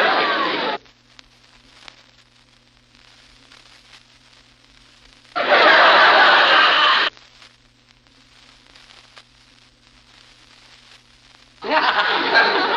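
Vintage studio audience laughter from a laugh track, in three short bursts of crowd laughter. The first cuts off just under a second in, the second lasts under two seconds in the middle, and the third starts near the end. Faint hiss and a steady low hum fill the gaps between them.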